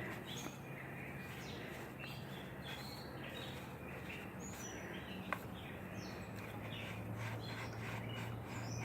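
Birds chirping, with a steady low hum underneath and a single sharp click about five seconds in.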